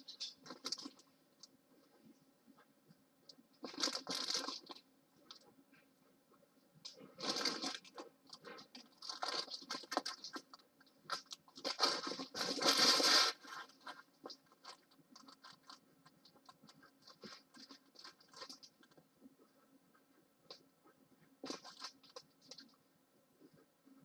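Plastic film over a rolled diamond-painting canvas crinkling as the canvas is unrolled, in several bursts, the loudest about twelve seconds in. Between them, a pen scratches on notepad paper.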